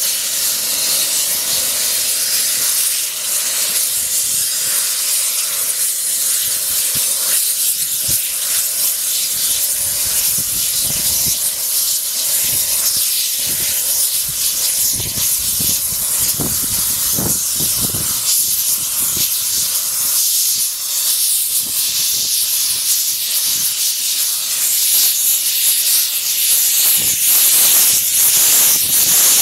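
Steam hissing loudly and steadily from a 15-inch gauge Romney, Hythe & Dymchurch Railway steam locomotive as it approaches slowly, steam venting low around its front end, with a scatter of low thumps partway through.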